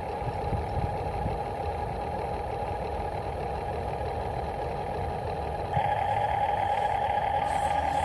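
Radio-controlled model construction vehicle running: a steady motor hum with a held whine. It gets louder about three-quarters of the way through.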